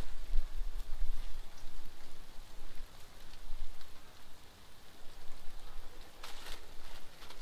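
Steak, peppers and onions sizzling and crackling on a hot Blackstone flat-top griddle, with a low rumble over the first couple of seconds and a brief louder hiss near the end.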